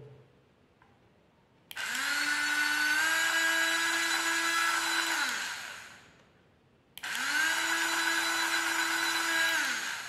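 Small electric motor and gearing of a toy train locomotive running, switched on twice by a remote-control switch. Each time the whine rises as the motor spins up, holds steady for three to four seconds, then falls as it stops. The wheels spin very fast on full battery voltage, too fast for the train.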